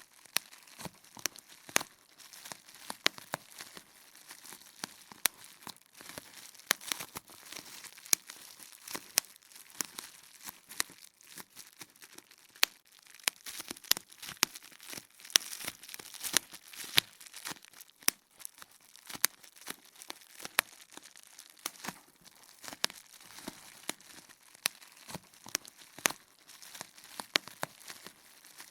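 Bubble wrap popping: many sharp, irregular pops over the crinkling of the plastic sheet.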